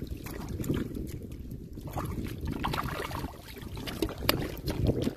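Hands splashing and sloshing through shallow muddy water while grabbing fish, with scattered sharp splashes and knocks over a steady low rumble.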